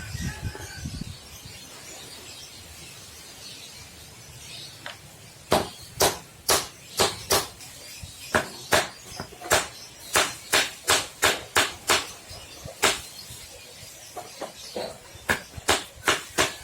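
Hammer blows, a run of sharp separate strikes at roughly two a second starting about five seconds in, with a short pause before a last quicker cluster near the end.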